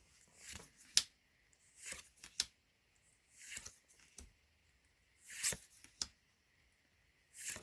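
Pokémon trading cards being handled and slid past one another by hand: short papery swishes every second or two, with a few sharp little clicks.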